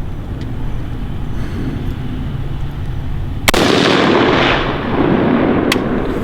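A single AR-15 rifle shot in 5.56/.223 goes off about three and a half seconds in and echoes away over the next couple of seconds, over a steady low wind rumble. A light click follows near the end.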